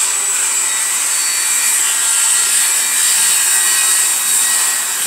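A motor running steadily: an even, high hiss with a faint thin whine, unchanging throughout.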